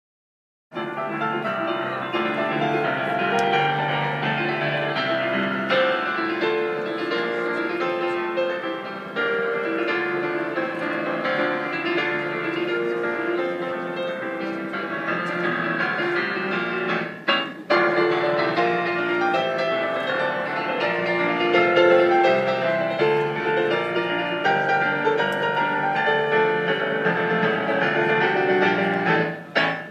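Digital piano played by a street pianist: a continuous run of melody and chords. It starts after a short silence, and dips briefly about halfway through and again just before the end.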